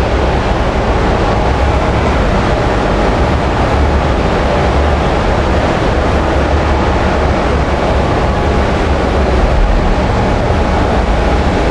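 Loud, steady background din of a busy exhibition hall: a dense wash of noise with a strong low rumble and no clear single source.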